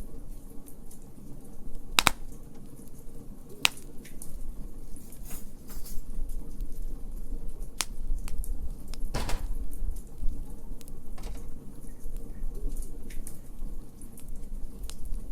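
Wood fire in a fire pit crackling, over a steady low rumble of burning, with a few sharp pops scattered through it; the strongest come about two seconds in and just after nine seconds.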